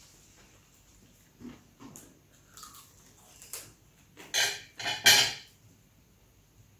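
People eating at a table: a fork clicking and scraping on a plate and small mouth noises while chewing fried chicken, with two louder noisy bursts about four and five seconds in.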